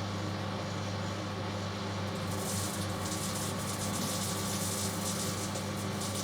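Microwave oven running at full power (1.5 kW) with a steady electrical hum. About two seconds in, a high crackling hiss joins the hum.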